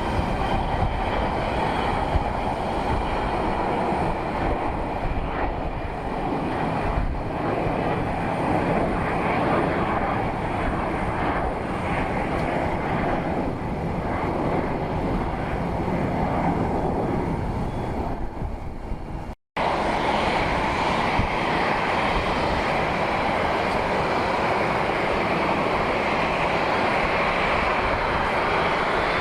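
Airplane engines running, a steady rush of engine noise. About two-thirds of the way through, the sound drops out sharply for a moment and then carries on with a bit more hiss.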